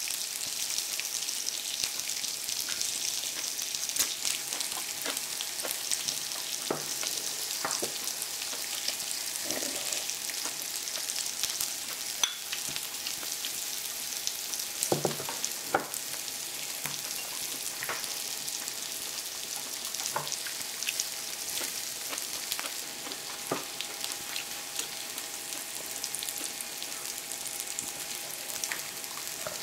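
Pork belly, kimchi and mushrooms sizzling steadily on an electric grill pan, with occasional short clicks and taps from eating.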